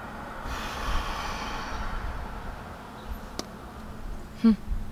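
A woman's long sigh, breathing out for about a second and a half, then a faint click and a brief sound of her voice near the end.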